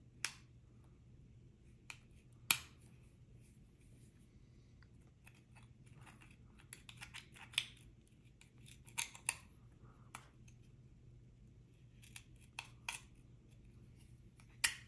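Steel tweezers picking and prying at the wire retaining clip inside an iPod mini's metal case. Small sharp metallic clicks and scratches come scattered through, loudest about a quarter second in, about two and a half seconds in, and just before the end.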